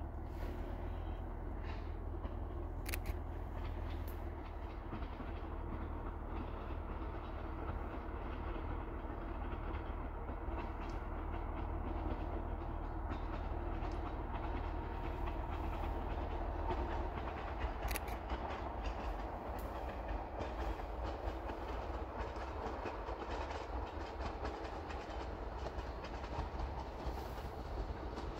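Narrow-gauge train approaching from a distance: a steady low rumble of the train running on the rails, with a few faint clicks.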